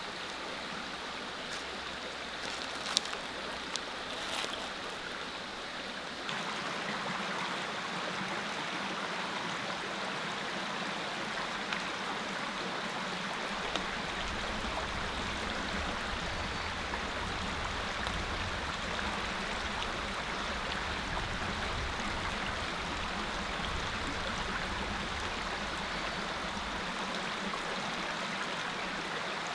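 Small mountain creek running steadily over rocks, a continuous rushing babble. A couple of light clicks sound about three seconds and four and a half seconds in.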